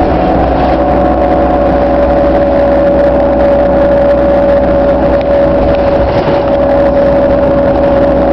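City transit bus engine and drivetrain running at a steady cruise, heard from inside the cabin: a loud, even drone with a constant mid-pitched hum over a low rumble.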